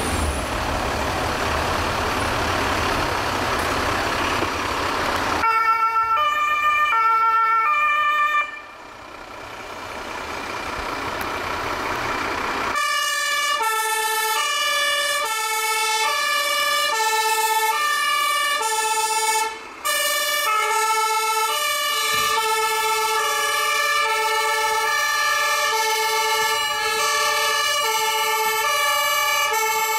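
German fire engines' two-tone sirens (Martinshorn) alternating high and low. One sounds for about three seconds, starting about five seconds in, after a steady noise. From about thirteen seconds several sirens sound at once, overlapping out of step.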